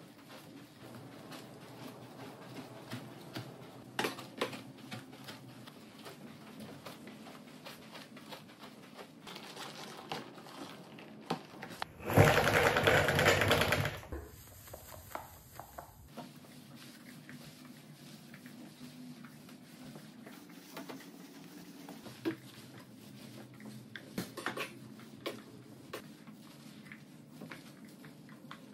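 O-Cedar spin mop swishing and scrubbing over a soapy wet hardwood floor, with scattered light knocks of the mop head and handle. About twelve seconds in, a loud rush lasting about two seconds as the mop head is spun in the bucket's spin wringer.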